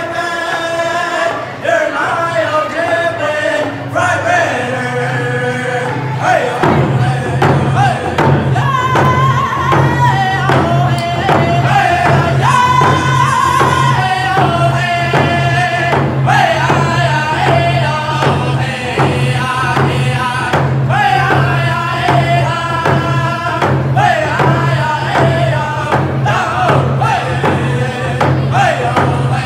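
Three male singers singing a round dance song together while beating a steady rhythm on hand-held frame drums. The drumming grows heavier about seven seconds in.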